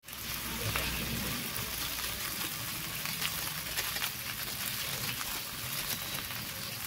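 Beef curry frying in a pan: a steady sizzling hiss with many small crackles.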